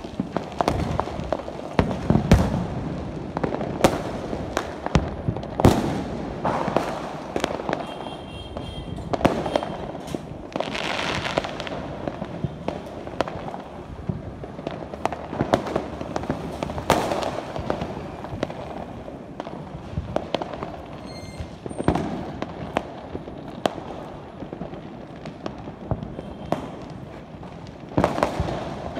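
Diwali fireworks and firecrackers going off all around, a steady run of irregular bangs and pops over a continuous rumble, with a hiss lasting about a second near the middle.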